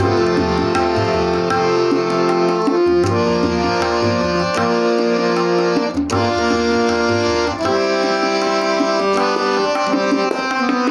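Instrumental interlude of a Bengali song: a harmonium plays a melody of held notes while a tabla keeps rhythm, with deep strokes on the bass drum and sharp strokes on the treble drum.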